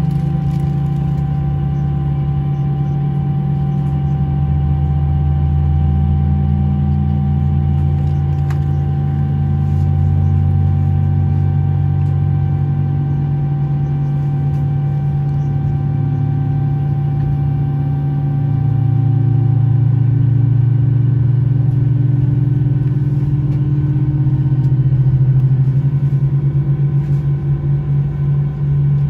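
Airbus A319's IAE V2500 turbofans at taxi power heard inside the cabin, with a steady low drone and several constant whining tones. Some of the tones slowly drift up in pitch, and a pulsing beat comes in near the end.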